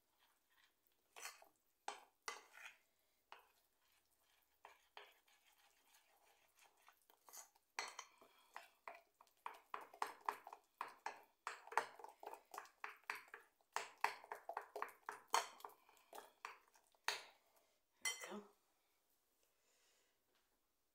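Kitchen utensils clinking and tapping against dishes: a string of light taps, scattered at first, then quick and close together through the middle, stopping a couple of seconds before the end.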